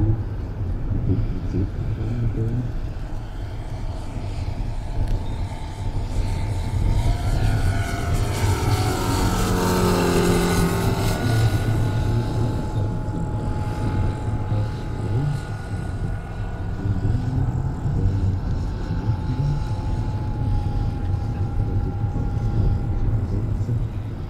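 Radio-controlled scale model of a Dewoitine D.26 monoplane flying past, its motor and propeller drone growing to loudest about ten seconds in, with the pitch falling as it passes. It then carries on more faintly at a steady pitch as the plane flies away.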